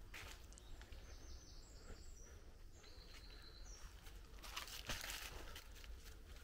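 Faint footsteps crunching on debris, with a few short, high bird chirps about one to three seconds in, over a low steady rumble.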